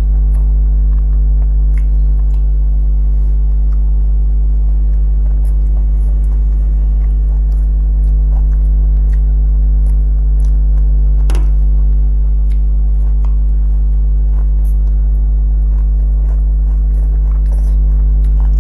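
Loud, steady electrical mains hum throughout, with faint scattered clicks and smacks of fingers mixing rice and of eating.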